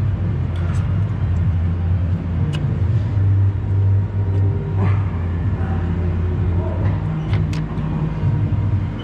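Car engine running steadily, with a few short sharp clicks over it.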